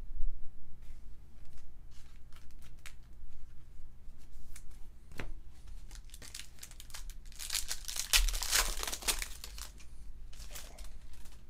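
Foil wrapper of a 2019 Topps WWE Undisputed trading-card pack being torn open, a dense burst of crinkling and tearing about two-thirds of the way through, with a smaller crinkle about a second later. Before it, scattered sharp clicks and rustles of cards and packs being handled.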